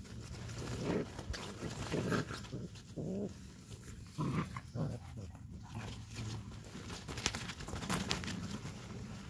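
Puppies giving several short barks while they play-chase, mostly in the first half and once more near the end, over the rustle and scrape of a nylon play tunnel and paws on it.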